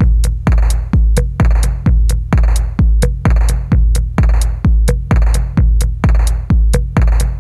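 Electronic background music with a heavy, steady kick-drum beat, a little under two beats a second.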